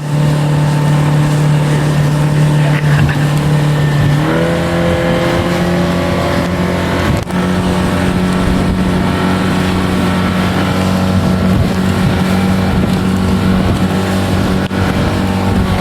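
Shetland 536 motorboat's outboard engine running under way; about four seconds in the throttle is opened and the engine note rises, then holds steady at the higher pitch, with rushing water and wind noise underneath.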